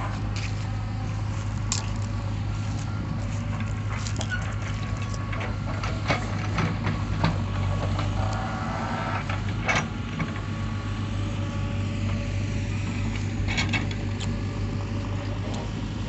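JCB 3DX backhoe loader's diesel engine running steadily under load while it digs, with a few short knocks scattered through.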